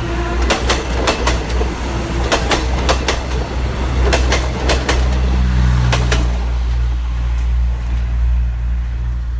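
Diesel passenger train passing close by: wheels clacking over rail joints, often in quick pairs, for about the first six seconds, over a heavy low rumble that carries on after the clacking stops.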